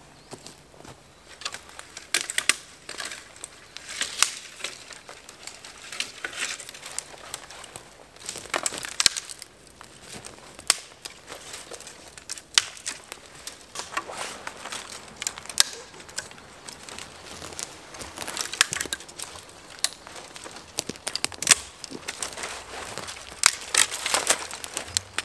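Dry dead twigs snapped by hand off the lower trunks of conifer trees: an irregular run of sharp cracks and crackles, with rustling of the gathered bundle in between.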